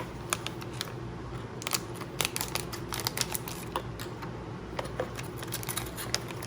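Irregular small clicks and taps from handling the replacement ice maker sensor boards and their packaging, over a steady low background hum.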